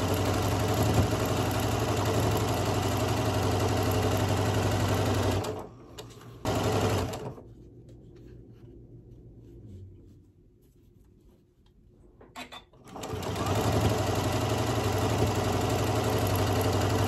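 Janome M7 sewing machine stitching pieced quilt fabric. It runs steadily for about five seconds, stops, gives one short burst of about a second, pauses for several seconds, then runs steadily again from about thirteen seconds in.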